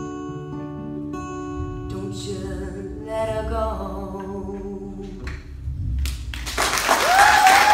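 Two acoustic guitars ringing out on a song's final chords with a last sung phrase in the middle, the music dying away about five seconds in. Near the end the audience breaks into applause with a long whistle over it.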